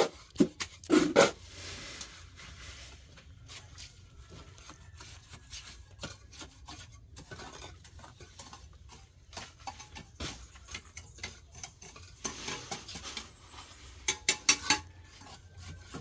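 Hand tools scraping and clinking in irregular strokes, with a few louder knocks at the start and two short clusters of strikes near the end.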